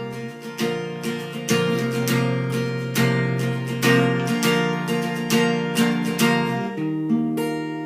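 Acoustic guitar strummed in a steady rhythm as an instrumental break in a song, the chords ringing and fading away near the end.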